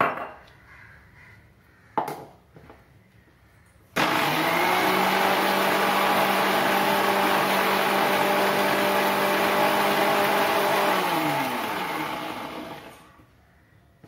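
Electric mixer grinder grinding chopped ginger with water: two short knocks, then the motor switches on about four seconds in and runs at a steady pitch for about seven seconds before winding down with a falling pitch.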